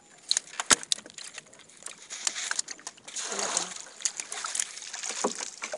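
Lake water splashing and sloshing around a small wooden fishing boat, broken by sharp knocks, the loudest just under a second in. A longer stretch of splashing starts about three seconds in as a bamboo pole is worked through the water.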